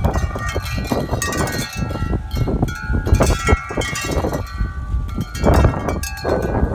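Metal wind chimes ringing constantly as strong gusts knock them about, many overlapping tones ringing on. Heavy wind rumble on the microphone underneath, with loud gusts about three seconds in and near the end.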